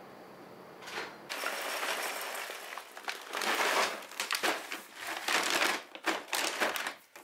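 A bag of dry dog food crinkling and rustling in irregular bursts as it is handled and tipped over a glass storage jar, with kibble pouring into the jar.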